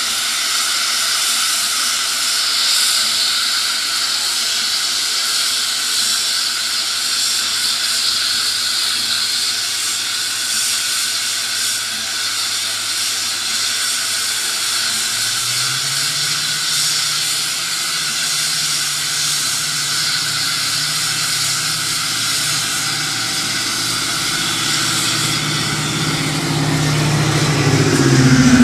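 Steam locomotive venting steam: a loud, steady hiss, joined about halfway through by a low engine drone.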